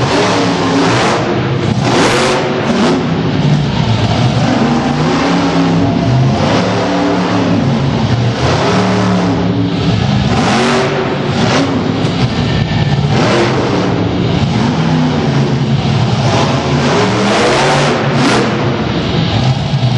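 Monster truck engine revving hard and easing off over and over, its pitch rising and falling, with a few sharp bangs as the truck lands jumps over crushed cars.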